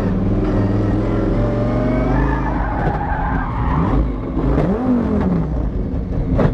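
Twin-turbo V10 Dodge Viper drift car's engine running and revving up and down while its rear tyres skid. A sharp bang comes near the end.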